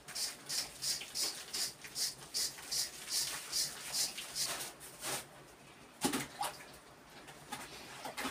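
Rhythmic scraping of a hand tool on a rough stone wall, about two to three short strokes a second, which stop about five seconds in. A single louder knock follows about a second later.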